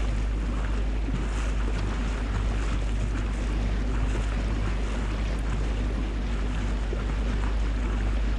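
Motorboat engine running steadily while underway, with water rushing along the hull and wind on the microphone.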